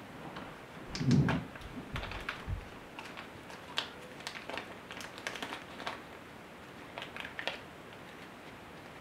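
Small clear plastic parts bag being handled and opened by hand: a run of light crinkles and sharp clicks, with a soft thump about a second in, dying away near the end.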